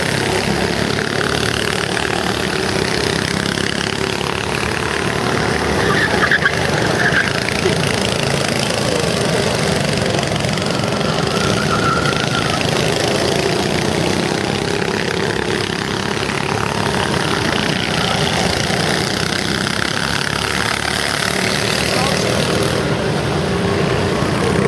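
Go-kart engines running as karts lap the circuit: a steady engine drone, with a few brief louder peaks about six seconds in.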